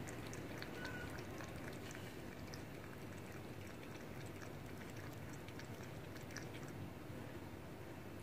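Cat lapping water from a bowl: a run of small, quick wet clicks over a steady low background noise.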